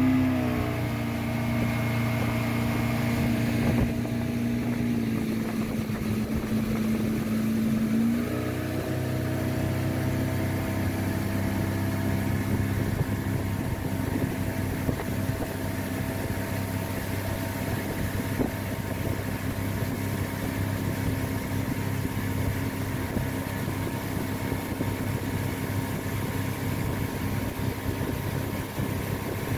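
Motorboat engine running under way, over a steady rush of water and wind. Its note drops about four seconds in, climbs again about eight seconds in, then holds steady.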